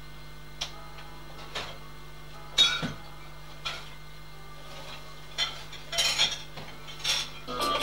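Scattered light clinks and knocks, about eight in all, the loudest a little under three seconds in, over a steady faint hum. Music begins right at the very end.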